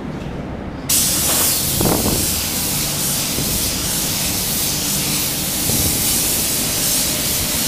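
Gravity-feed spray gun triggered about a second in, then a steady hiss of air and atomised paint as a light dusting of base coat goes on. A steady low hum runs underneath.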